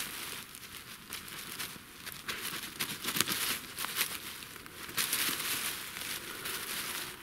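Irregular rustling and crinkling of hands working in dry fallen leaves on the forest floor, busiest about three and five seconds in.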